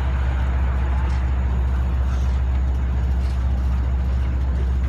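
Diesel locomotive of a stopped Long Island Rail Road train idling, a steady low drone.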